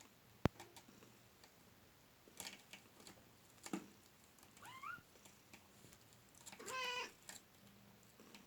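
Four-week-old kittens playing: scattered light taps and scuffles, a short rising squeak about five seconds in, and one kitten mewing once, about half a second long, near the end. A sharp click sounds about half a second in.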